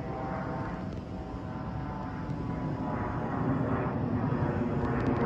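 Jet engines of an Airbus A320-214 (CFM56 turbofans) rumbling as the airliner approaches, growing steadily louder.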